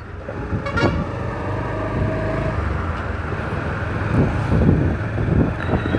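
A motorcycle engine running at a steady cruising speed while riding, with wind rushing over the microphone.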